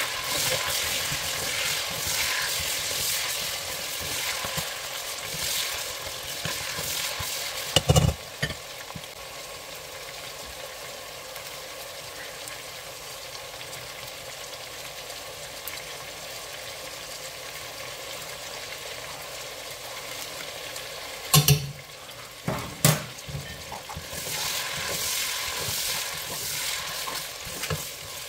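Lamb pieces sizzling as they fry in oil in a stainless steel pressure cooker pot, with a plastic slotted spatula stirring and scraping them, busiest at the start and again near the end. A few sharp knocks of a utensil against the pot: once about eight seconds in and twice a little past twenty seconds.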